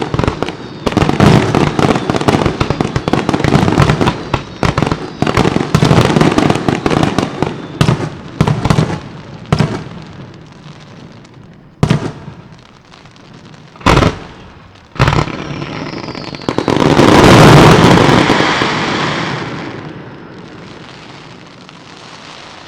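Aerial firework shells bursting in a fast, dense barrage that thins out to a few single loud bangs. Near the end a loud rush of noise swells up and slowly fades.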